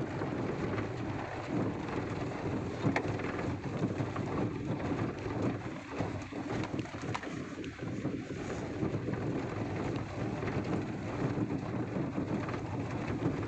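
Vehicle driving over a rough, stony dirt road: a steady rumble with scattered knocks and rattles from the jolting, and wind buffeting the microphone.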